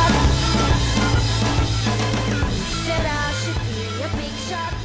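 Rock music with a drum kit and gliding melodic lines, fading out steadily.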